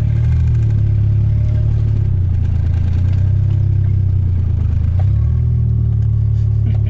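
Turbocharged Daihatsu Mira engine running at low revs, pulling the car slowly in reverse, with small rises and dips in engine speed, heard from inside the cabin.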